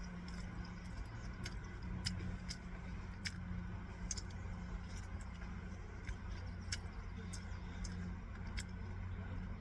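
A steady low hum with faint short clicks scattered through it.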